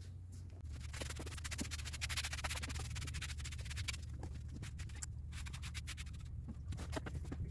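Scratchy rubbing and rustling with many small irregular clicks, like objects or paper being handled close to the microphone, over a low steady hum.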